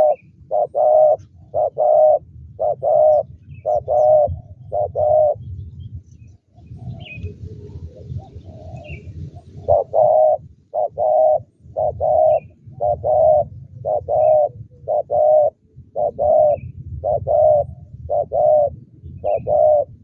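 Spotted doves cooing: a long run of short coos, repeated over and over in quick twos and threes, breaking off for about four seconds midway and then resuming. A low rumble runs underneath.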